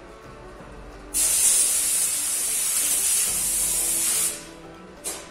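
A pressurised spray hissing hard for about three seconds, cutting off cleanly, then one short burst near the end.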